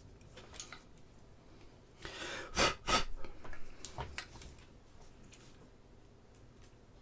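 Handling noise from fingers working a resin model part: a short rustle about two seconds in, then two sharp knocks in quick succession and a few lighter clicks.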